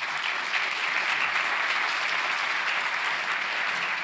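Seated audience applauding steadily at the close of a talk.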